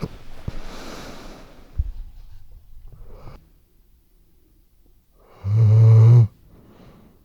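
Weimaraner shifting about with rustling and a knock, then one loud, pitched snore lasting under a second about five and a half seconds in, followed by a soft breath as it settles back into sleep.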